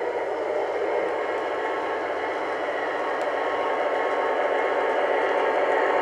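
Lionel O-gauge Alco S4 switcher locomotive running along three-rail track, a steady whir and rumble of its motor and wheels that slowly grows louder.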